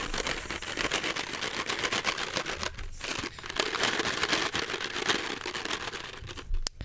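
Small red cardboard box handled close to a microphone: a dense run of crinkles, rustles and small clicks, with a short pause about three seconds in.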